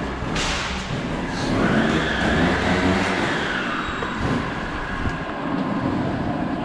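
A motor vehicle running, with a swell that rises and falls in pitch between about one and a half and three and a half seconds in.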